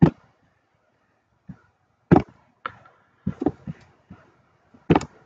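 A computer mouse clicking: about eight sharp clicks spaced irregularly. The loudest come right at the start and about two seconds in.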